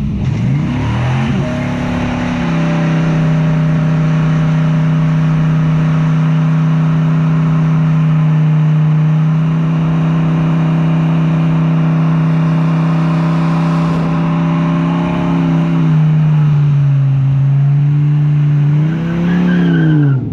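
2004 Dodge Ram SRT-10's 8.3-litre V10 held at high revs in a burnout, the rear tyres spinning on the pavement. The engine revs up over the first couple of seconds and holds steady for most of the time. About three-quarters of the way through it sags, then revs once more and drops off near the end.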